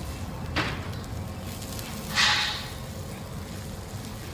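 Chicken cooking on a charcoal rotisserie grill: a steady low rumble with two short hisses, the louder one about two seconds in.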